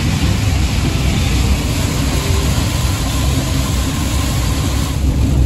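Inside a moving van in heavy rain: a steady low rumble of engine and road noise under an even hiss of rain and wet tyres.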